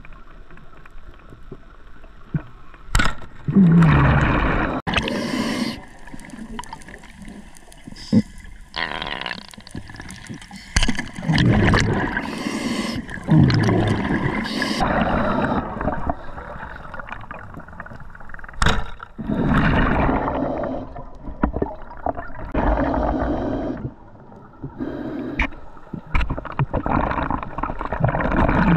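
Scuba diver breathing through a regulator underwater: loud gurgling bursts of exhaled bubbles, each a second or two long, recurring every few seconds, with a few sharp clicks between them.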